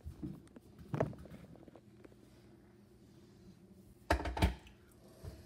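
Handling knocks and thumps on a kitchen counter: a thump at the start, a single sharp knock about a second in, then a louder quick cluster of knocks about four seconds in, over low room noise.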